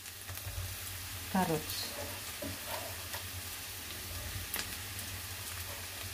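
Oil sizzling steadily in a wok of sautéing onions, garlic and ginger as julienned carrot strips are dropped in, with a low hum underneath and a single sharp click about four and a half seconds in.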